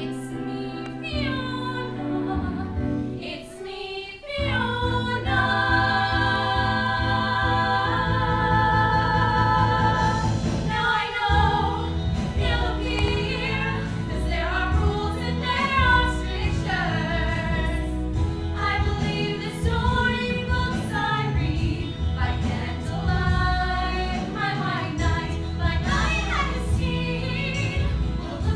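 Female voices, a woman's and girls', singing a stage-musical song over recorded instrumental backing, with a long held chord about five seconds in and then a quicker, moving melody.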